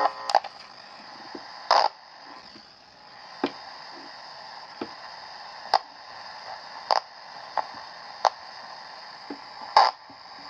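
Steady static hiss from a Candle pocket transistor radio, heard through a signal-tracing amplifier, broken by sharp clicks roughly once a second at uneven spacing. The static is the radio's fault, which is suspected to arise in the converter or oscillator stage.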